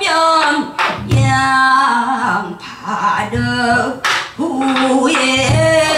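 A woman singing pansori in the Boseong style, her voice sliding and wavering between held pitches, with a few low thumps underneath.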